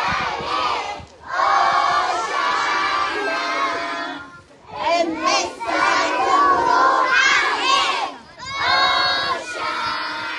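A group of young children shouting together in unison, in repeated phrases of a few seconds each with short breaks between.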